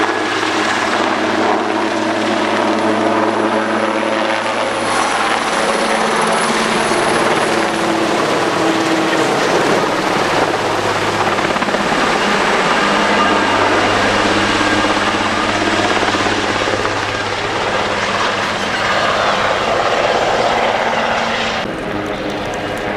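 Super Puma twin-turbine helicopter flying low overhead: a loud, steady mix of rotor and turbine noise. About a second before the end it suddenly turns quieter and duller.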